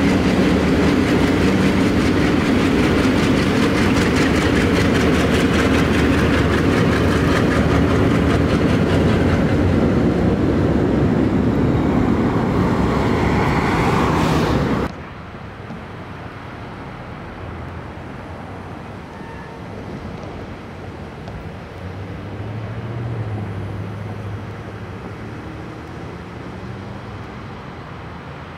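Alco diesel locomotives passing close by, their engines running loud and steady under the noise of wheels on rail. About halfway through the sound cuts off abruptly to a much quieter, distant locomotive rumble.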